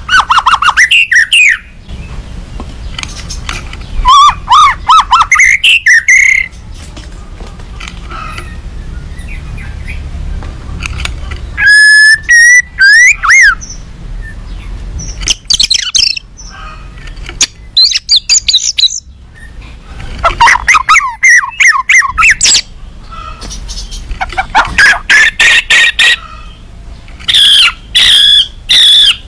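White-rumped shama (murai batu) singing an agitated, territorial song in loud bouts of a second or two. Each bout mixes whistled phrases with rapid runs of harsh notes, with short pauses between bouts.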